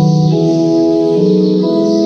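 Electronic keyboard playing a hymn tune in held chords, the chords changing every half second or so.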